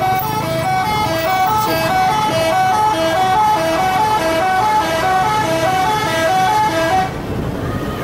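Indonesian bus 'telolet' multi-tone musical horn playing a quick repeating tune of short held notes, which cuts off about seven seconds in, leaving road noise.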